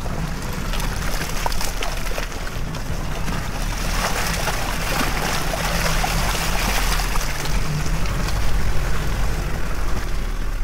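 Maruti Gypsy King 4x4 engine pulling the vehicle slowly through deep wet mud ruts, with the tyres squelching and churning the mud. The tyre-and-mud noise swells in the middle as the vehicle draws close.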